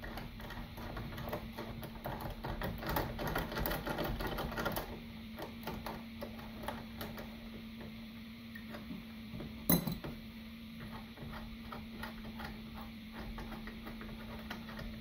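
Hand ratchet with a T45 Torx bit clicking in quick runs as the muffler mount bolt is backed out, with one louder sharp click about ten seconds in. A steady low hum runs underneath.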